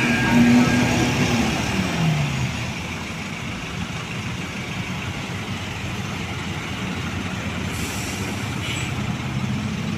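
Diesel truck engines running under load on a steep climb amid traffic. A loud engine note in the first second and a half drops in pitch about two seconds in as a vehicle goes by, leaving a steady engine rumble, and a brief hiss comes about eight seconds in.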